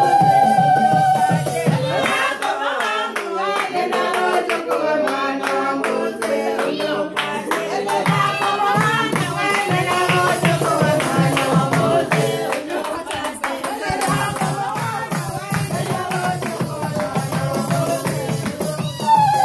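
Lively live music with voices singing, accompanied by hand clapping and a rattling percussion beat.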